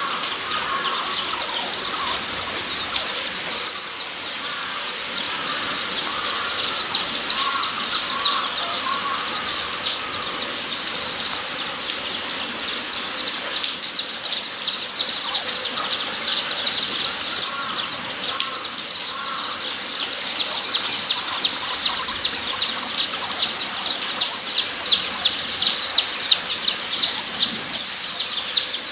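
A group of guinea pigs squeaking: a continuous chorus of short, high-pitched squeaks repeating several times a second, growing louder and busier over the last few seconds.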